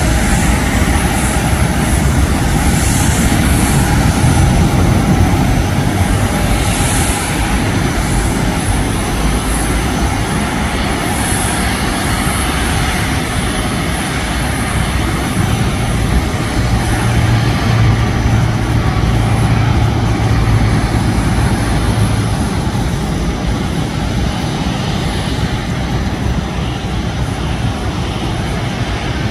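Airbus A350's Rolls-Royce Trent XWB turbofan engines running at low taxi power as the airliner taxis: a steady loud rumble and hiss with a faint high whine. A low hum swells for several seconds past the middle.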